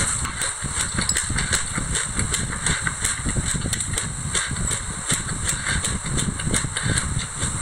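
Close-miked chewing of a mouthful of raw white sesame seeds mixed with passion fruit pulp and seeds: a steady, dense crackle of many small crunches.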